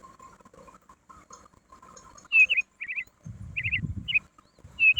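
A bird chirping: faint chirps at first, then from about two seconds in loud clusters of two or three quick high notes, repeated several times. A brief low rumble sits under the calls around the middle.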